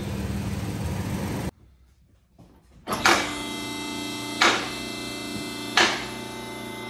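A vehicle engine idles steadily and stops abruptly about a second and a half in. About a second later, a hammer strikes metal three times, about a second and a half apart, each blow ringing.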